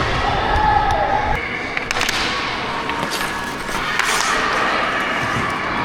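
Ice hockey play on the rink: skate blades scraping and carving the ice, with a few sharp knocks from sticks, puck or boards.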